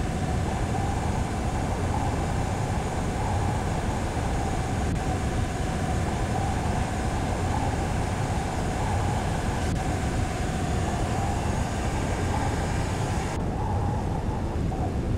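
Sailing yacht's inboard engine running steadily under way, a low rumble with a steady hum over it. The hiss above it drops away near the end.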